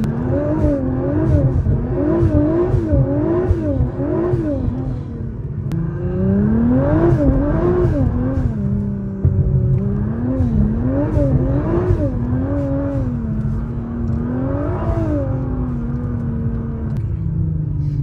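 Tuned 900 hp Nissan GT-R R35's twin-turbo V6, heard from inside the cabin, revving up and down over and over, about one to two swings a second, as the throttle is pulsed while the car slides on snow. The revs dip briefly a third of the way in and hold steadier before falling away near the end.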